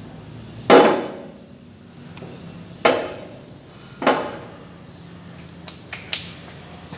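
Three loud metal knocks about a second or two apart, each ringing briefly, from steel round bar stock being knocked into place in a metal-cutting band saw's vise. A few lighter clicks follow near the end.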